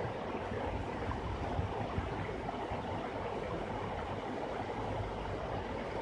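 Small waterfall spilling over rock ledges into a pool: a steady, even rush of running water.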